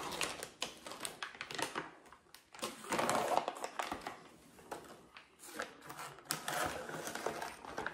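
Kitchen scissors snipping through a plastic cook-in bag, with irregular clicks of the blades and crinkling of the plastic as the bag is cut open.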